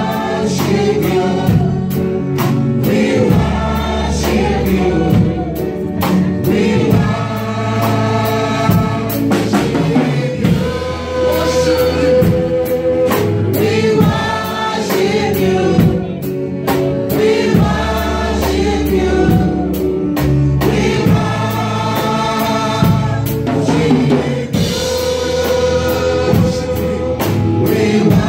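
Live gospel worship song: several singers on microphones singing together, backed by acoustic and electric guitars and a drum kit keeping a steady beat.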